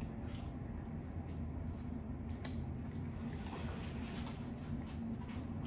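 Close-miked chewing of Mongolian beef and rice, with scattered soft wet mouth clicks and smacks over a steady low hum.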